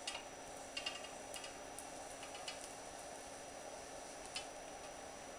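Hot wire bow being drawn through a block of foam along wooden airfoil templates: faint, irregular ticks and clicks, a few a second, with one sharper click about four seconds in, over a steady low hum.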